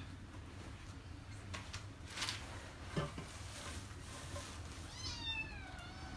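A cat meows once near the end, a single falling call about a second long. A few soft knocks and crackles come earlier as firewood is shifted in the fire.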